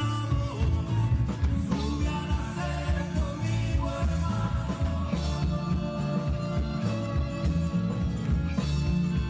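A live rock band playing, with bass and drums keeping a steady beat under guitar, and a voice singing.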